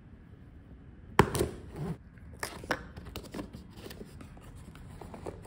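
Cardboard camera box being opened by hand: a sharp click about a second in, then scattered clicks, scrapes and rustles of cardboard as the lid is worked loose and lifted off.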